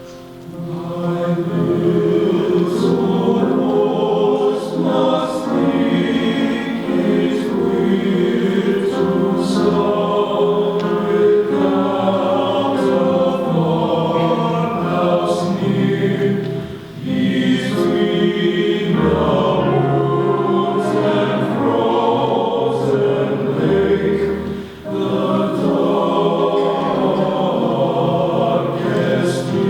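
A high school men's chorus singing in several parts. The singing breaks briefly between phrases about 17 and 25 seconds in.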